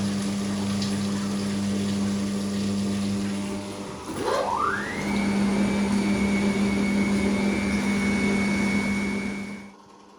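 Gorenje PS 060 A washing machine with a Končar motor: the drain pump hums steadily, then about four seconds in the drum motor spins up with a whine that rises quickly and holds at a steady high pitch over the pump hum. Everything cuts off sharply near the end.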